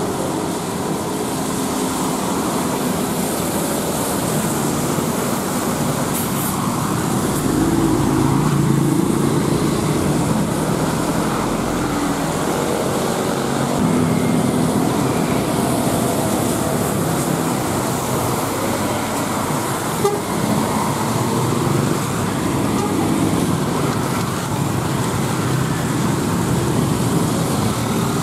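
Road traffic on a wet road: intercity buses, cars and motorcycles passing, tyres hissing on the wet asphalt, with horn toots. A heavy vehicle's deep engine rumble swells from about 8 to 12 seconds in.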